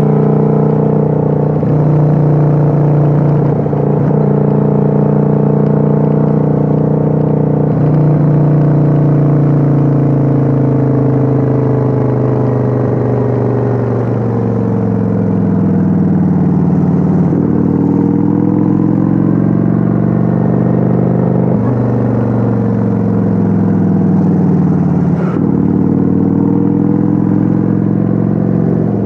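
Kawasaki Vulcan 900's V-twin engine running under way, recorded on board. It pulls at a fairly steady pitch with a few small steps through the first half. In the second half the pitch rises and falls again and again as the throttle opens and closes.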